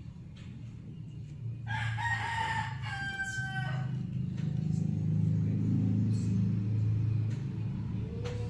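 A rooster crowing once, starting about two seconds in: a cock-a-doodle-doo of about two seconds that drops in pitch at the end. A low steady hum runs underneath.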